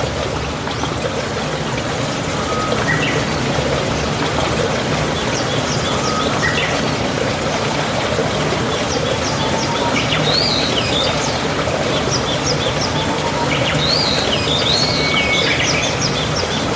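Wild birds calling: short arched whistled notes and quick high ticks, growing busier from about halfway in, over a steady rushing background noise.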